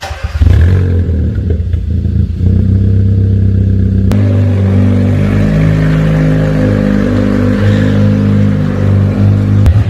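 Kia K3 GT's 1.6-litre turbocharged petrol engine, swapped into a 1999 Kia Pride, fires up for its first start and runs steadily. About four seconds in the sound cuts to the engine running with its pitch shifting as the car moves under its own power.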